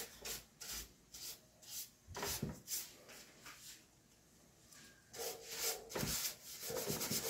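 Bristle paintbrush scrubbing dust off a plastic keyboard panel in short scratchy strokes. There is a pause of a second or two in the middle, then faster, louder brushing near the end.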